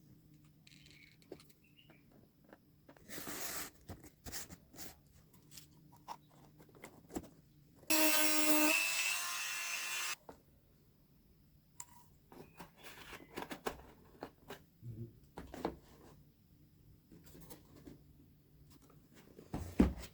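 Crafting sounds of cardboard and tools being handled: rubbing, scraping and small taps, with a noisy burst about three seconds in, a louder screechy burst lasting about two seconds around eight seconds in, and a sharp knock near the end.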